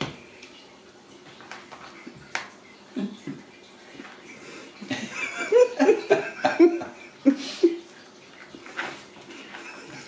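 A person chuckling softly in a run of short bursts from about halfway through, over scattered light taps and scuffs of kittens playing with sneakers on a tile floor.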